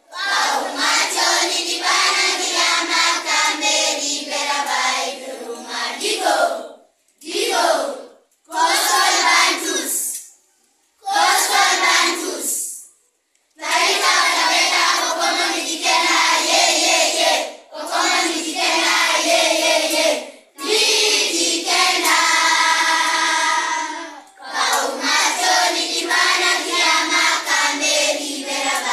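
A class of young schoolchildren singing together in unison, in phrases separated by short pauses, with some longer held notes.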